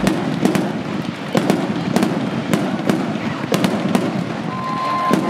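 Fireworks going off: sharp bangs about twice a second over continuous crackling, with a steady whistle coming in about four seconds in.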